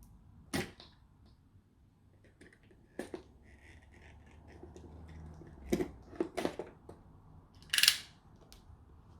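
A microphone's retail box being handled and opened: a few sharp clicks and knocks with light rustling, the loudest a short rasping sound about eight seconds in.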